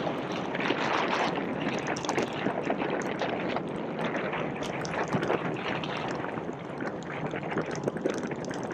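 Steady wind rushing over the microphone while riding a bicycle, with scattered faint ticks.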